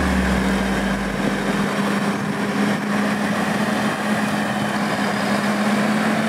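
Valtra N154 tractor engine running as the tractor drives along towing a round baler-wrapper, a steady drone that rises slightly in pitch toward the end.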